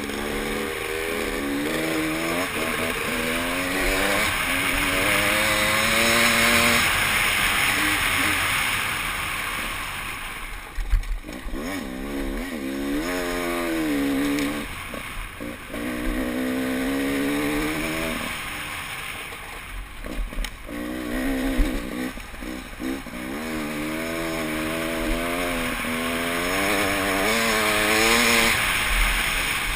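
Enduro dirt bike engine being ridden hard on a trail, its revs climbing and dropping again and again as the throttle opens and closes, with wind rushing over the microphone. Two sharp knocks stand out, about a third of the way in and again about two thirds in.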